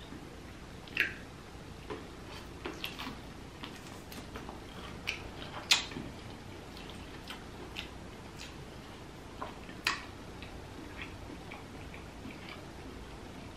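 Close-miked eating of king crab meat dipped in butter sauce: scattered wet mouth clicks and smacks while chewing, with three louder sharp clicks about a second in, near the middle, and about ten seconds in.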